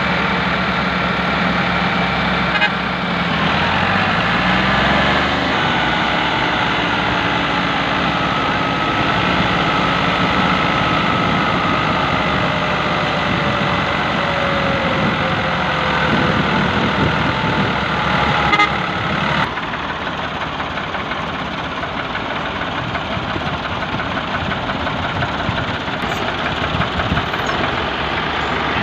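Ford three-cylinder tractor engines running hard under load, pulling a loaded trolley through soft ploughed soil. The engine pitch rises in the first few seconds and then slowly sinks. The sound changes abruptly about two-thirds of the way through.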